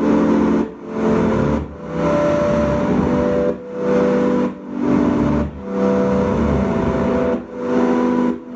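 Live band music, loud and amplified: sustained chords played in phrases just under a second long, each cut short by a brief break.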